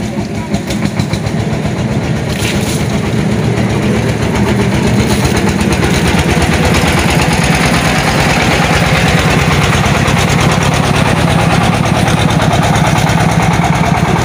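Tractor diesel engine idling with a steady fast beat, getting louder over the first several seconds and then holding steady.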